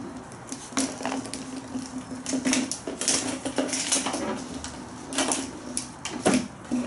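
A month-old German Shepherd puppy scrabbling about on a tiled floor: irregular clicks and light clattering knocks from its claws and from small plastic and metal things being bumped.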